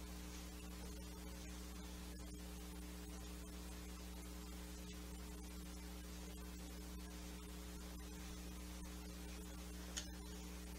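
Steady low electrical mains hum, unchanging, with one faint click near the end.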